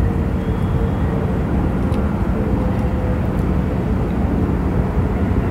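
Steady low outdoor rumble, with faint steady hums in it.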